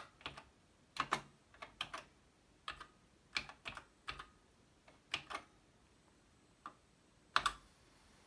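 Keystrokes on a TRS-80 Model 1 keyboard: about fifteen separate clicks at an uneven typing pace, the loudest keystroke near the end.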